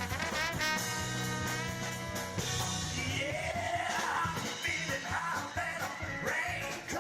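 Live band playing an instrumental break with drums: held notes for the first couple of seconds, then a lead melody line that bends up and down in pitch.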